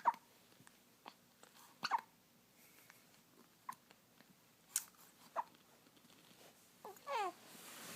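Repeated hiccups, one short sharp hic about every one to two seconds, with a brief falling whine about seven seconds in.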